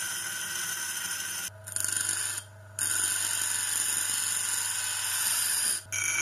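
A motor-driven grinding machine running with a steady whine and a rubbing, scraping sound of grinding. The sound drops out abruptly about a second and a half in, again briefly just after, and once more near the end.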